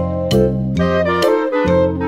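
Instrumental background music with a steady beat of about two strikes a second over held keyboard-like notes.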